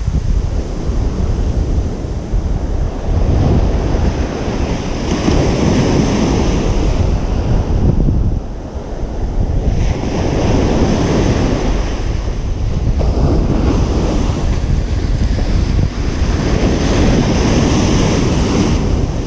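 Ocean surf on a beach: waves breaking and washing up in a steady rushing hiss that swells and eases every few seconds. Wind rumbles on the microphone underneath.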